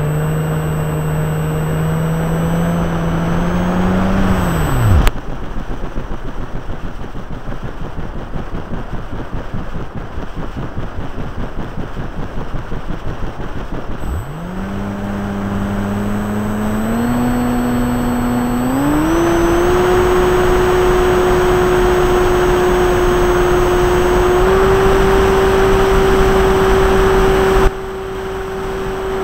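Brushless outrunner electric motor and propeller of an RC Cessna 182 model, heard from an onboard camera. The motor whine cuts off suddenly about five seconds in, leaving only wind noise on the microphone. It spins back up about halfway through and rises in pitch in several steps as the throttle is opened.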